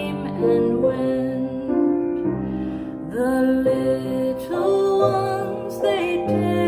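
A song: a woman singing held notes with piano accompaniment.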